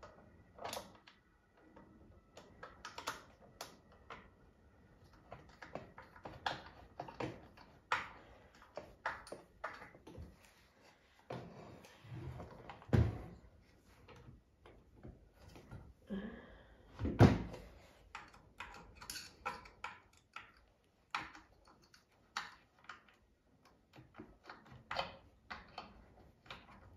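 A screwdriver and loose metal parts clicking and tapping against a sewing machine's metal casing as screws are fitted, in scattered, irregular clicks with two louder knocks near the middle.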